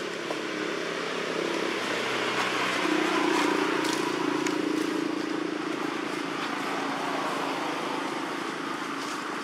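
A motor vehicle's engine hum that swells to its loudest about three seconds in and then slowly fades, with a few faint crackles over it.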